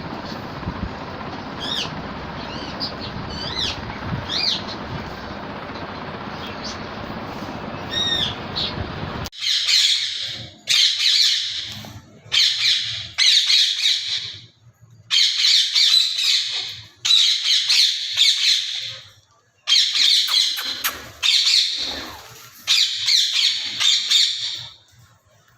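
For the first nine seconds, a steady background rumble with small birds chirping. Then, after an abrupt cut, a parakeet squawking loudly: about fifteen short calls in quick runs with brief pauses.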